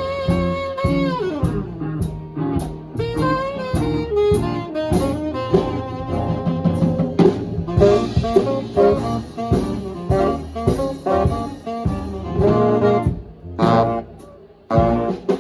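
Live swing band playing, with a held note sliding down about a second in and a brief drop in the music near the end before the band comes back in.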